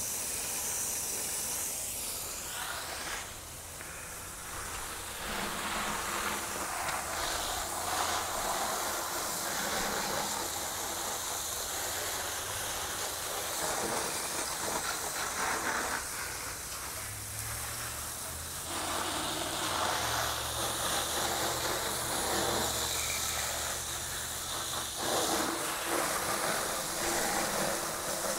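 Water spraying from a hose, rinsing soap off a motorcycle: a steady hiss that shifts as the stream moves over the bike, with brief dips. A low hum joins in for several seconds past the middle.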